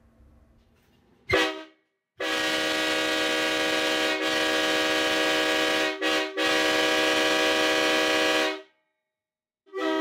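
Nathan AirChime K5L five-chime train horn sounding on compressed air. There is a short toot about a second in, then a long steady chord of about six seconds, broken briefly near the middle, and a new blast starting near the end.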